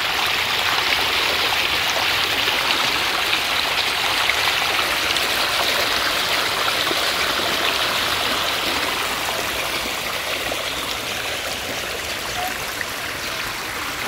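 Water from a burst underground pipe welling up around the edges of a manhole cover and running off across flooded asphalt: a steady rushing and splashing, easing slightly in the second half.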